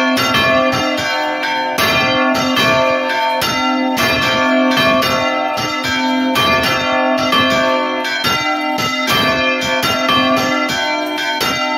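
Church bells pealing for the call to mid-morning mass, a bronze bell on a counterweighted iron headstock swung right over in full turns (Spanish volteo). Strokes come about three or four a second, each ringing into the next.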